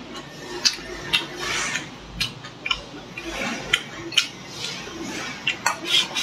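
Close-up eating sounds: chewing and lip smacking on chicken and rice, broken by sharp clicks of wooden chopsticks against a ceramic bowl.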